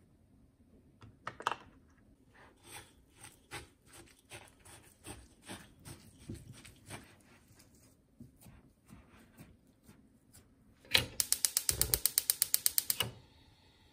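Silicone spatula scraping and pressing shiratama flour and tofu into a dough in a glass bowl, in soft strokes about twice a second. Near the end comes the loudest sound, a fast, even run of sharp mechanical clicks, about ten a second, for about two seconds.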